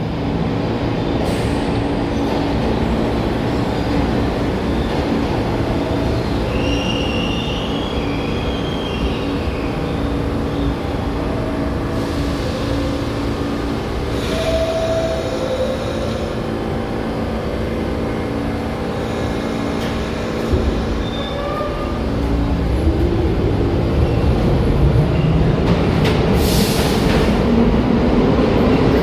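New York City subway train at a station platform, its equipment humming steadily with short hisses of air and a few brief squeals. From about 22 seconds in, a rising whine as the train's motors pull it away from the station.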